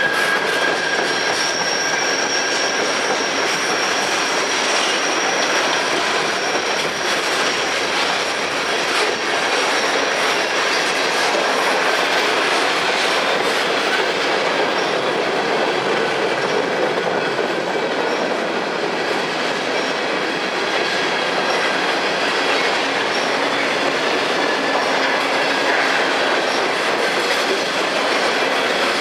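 Freight cars rolling past close by: a steady wheel-on-rail rumble with clicking over the rail joints, and a thin high wheel squeal that fades out about halfway through.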